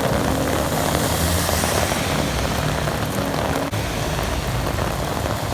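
Rain falling steadily, with a vehicle engine running low underneath.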